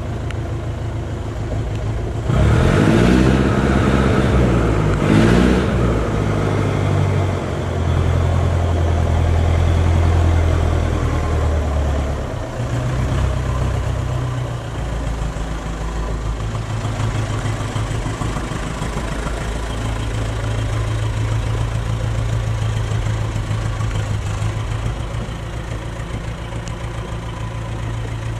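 Forklift engine revving up and back down twice, then running at a steady low idle.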